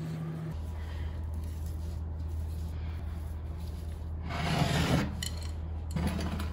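Rubbing, rasping strokes during kitchen food preparation: a louder one under a second long about four seconds in, and a shorter one near the end, over a steady low hum.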